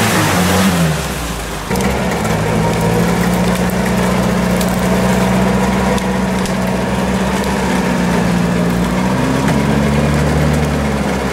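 Engine of an off-road jeep, a GAZ-69, running hard at steady high revs while its wheels work in deep mud. The sound changes abruptly about two seconds in, and the revs waver up and down slightly near the end.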